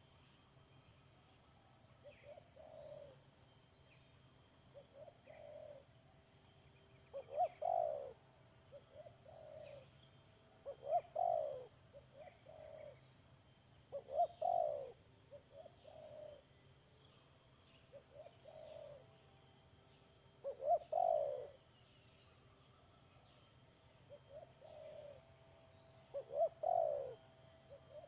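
Spotted doves cooing: short, low coo phrases repeat every few seconds, some distinctly louder than others. A faint steady high hiss runs underneath.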